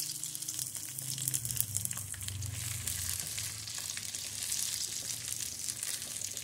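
Sliced okra sizzling as it fries in hot oil in an aluminium kadhai, stirred with a spatula. The steady frying hiss carries faint scrapes and ticks of the stirring.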